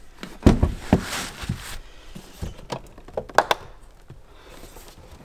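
A car headlight's plastic housing being handled and shifted on a workbench: a few dull thumps within the first second, then light taps and clicks a couple of seconds later.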